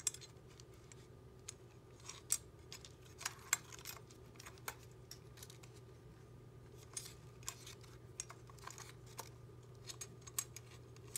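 Scattered small clicks and taps of a metal SmallRig cage being handled and fitted onto a Sony A6500 camera body while its thumbscrew is turned, over a faint steady hum.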